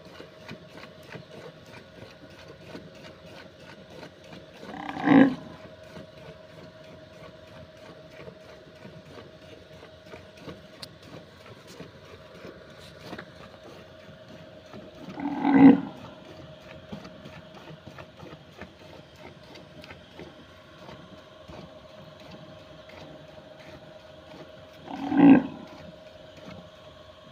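Cow mooing three times, short calls about ten seconds apart, each standing out loudly over a quiet background.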